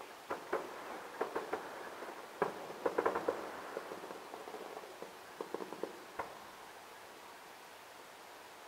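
Distant aerial fireworks: scattered sharp pops and crackles in small quick clusters, fading out after about six seconds.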